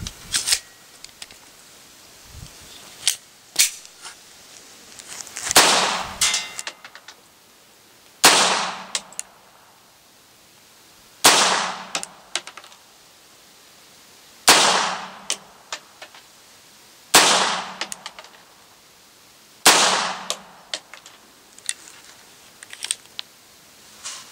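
Vostok Margolin semi-automatic target pistol firing six .22 Short shots, slow and evenly spaced about three seconds apart, each a sharp crack with a brief echo after it. A few light clicks come in the first few seconds, before the first shot.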